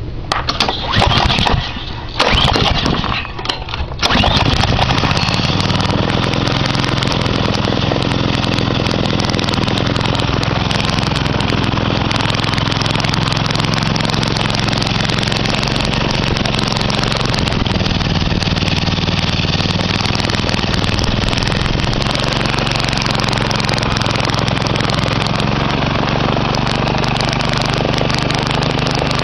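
Honda GC160 single-cylinder four-stroke overhead-cam engine starting: a few seconds of uneven bursts, then it catches about four seconds in and runs steadily.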